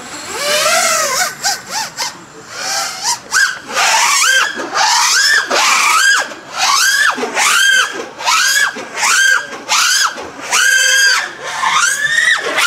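FPV drone's brushless motors and propellers whining in flight, the pitch rising and falling over and over, about one to two swoops a second, as the throttle is punched and eased. The motors run on an Aikon F7 mini AIO ESC that has just survived having its props forcibly stopped at full throttle, and they keep running.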